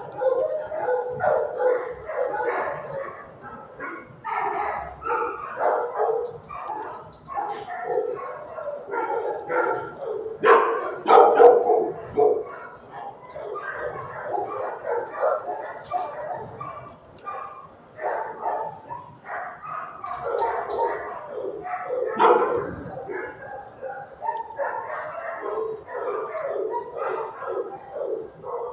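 Dogs in a shelter kennel block barking without pause, many barks overlapping, with yips and whimpers among them. The barking is loudest about ten to twelve seconds in and again a little past twenty seconds.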